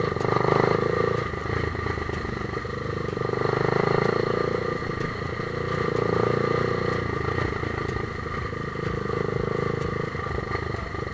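Vehicle engine running steadily in slow, heavy traffic, a continuous drone whose level swells and eases gently.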